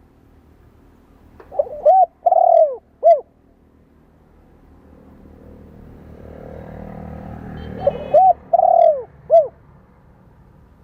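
Spotted dove cooing: two phrases of three or four coos each, the second about six seconds after the first. Between the phrases a faint, low, noisy sound swells up and fades away.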